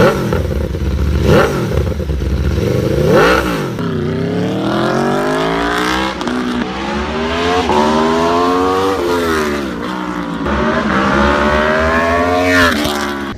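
Aprilia Tuono V4 1100's V4 engine through a Yoshimura aftermarket exhaust: two quick revs, then pulling hard in several long rising runs of pitch, each broken by a drop as it shifts or rolls off.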